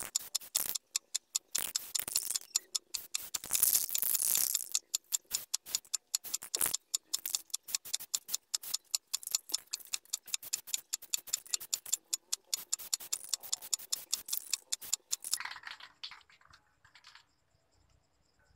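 Aerosol spray can of clear coat: rapid, regular clacking of the mixing ball as the can is shaken, broken by hissing bursts of spray, with the last burst a little before the end.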